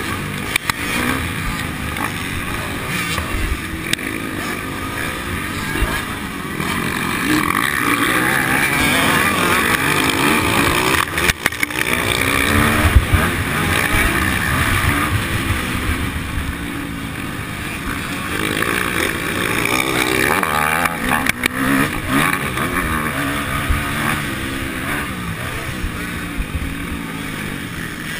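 Motocross bike engine heard close up from an onboard camera, revving up and falling back again and again as the rider accelerates, shifts and slows for corners.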